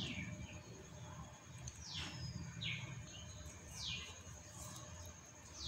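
A bird calling outside, faint: about five short chirps that each fall sharply in pitch, one every second or so.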